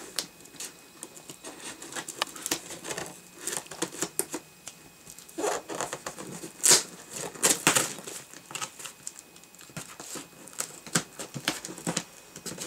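Scissors cutting along the packing tape on a cardboard box: an irregular run of crackling, tearing and scraping against the cardboard, the loudest scrape about six and a half seconds in.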